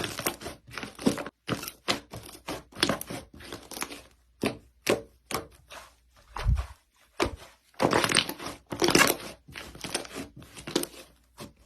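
Hive slime being squeezed and pressed by hand, crackling and squishing in quick repeated bursts of about two a second, with a dull thump about six and a half seconds in.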